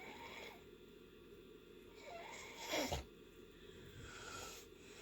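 Faint snoring breaths from someone in deep sleep. A breath comes right at the start, a louder snore falling in pitch about two and a half to three seconds in, then a softer breath with a faint whistling tone about four seconds in.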